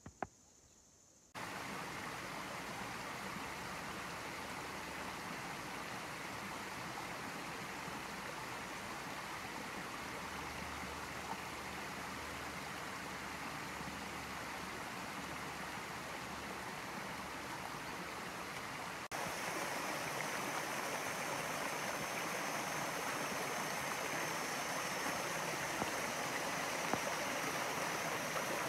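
Forest stream rushing over rocks: a steady flow of water that starts abruptly about a second in. About two-thirds of the way through it jumps louder and brighter, as a small cascade splashes into a rocky pool.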